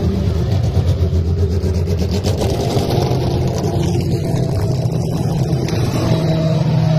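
A motor vehicle engine running at a steady speed, its pitch stepping up about six seconds in.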